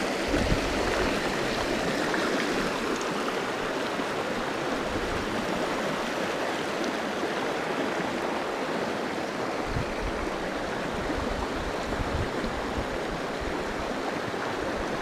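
Small rocky creek running over stones in shallow riffles: a steady rush of water.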